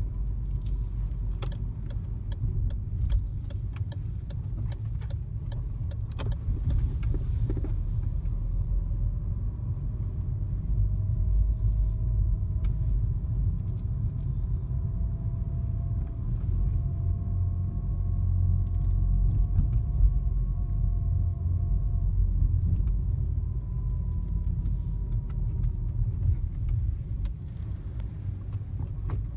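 A car driving slowly, heard inside the cabin: a steady low rumble from the engine and tyres with a faint whine that drifts slowly in pitch. Light clicks and rattles come in the first several seconds.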